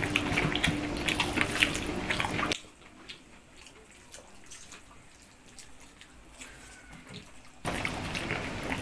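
Wet, clicky eating sounds: fingers mashing rice with fish curry on plates, and chewing with lips smacking. About two and a half seconds in they drop suddenly to a much quieter stretch of faint soft clicks, and the louder wet sounds return near the end.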